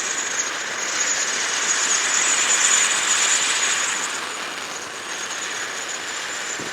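Ground girandola stage of an SS Thrusters firework fountain spinning on the ground: a loud steady jet hiss with a thin high whistle over it, dying away through the second half.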